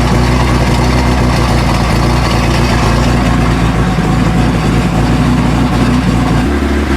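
Opel Kadett D estate's petrol engine idling steadily, freshly started for the first time after sitting. Its note shifts near the end.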